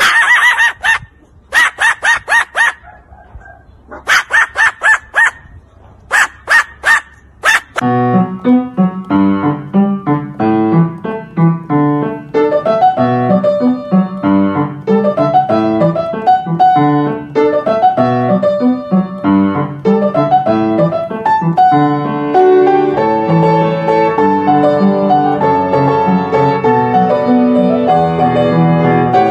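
A bird clucking like a hen in four rapid-fire bursts of sharp calls over the first eight seconds. Then piano music starts and plays on to the end.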